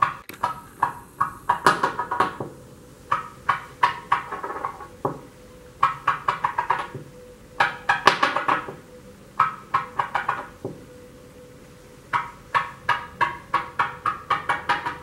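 Wooden fidget stick with steel-weighted tips knocked end-down against a hard tabletop over and over, in quick runs of several taps a second. The runs last one to two seconds with short pauses between, and the longest run comes near the end.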